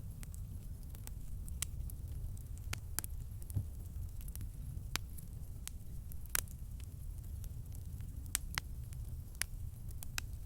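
Wood campfire crackling: irregular sharp pops and snaps over a steady low rumble of the burning fire.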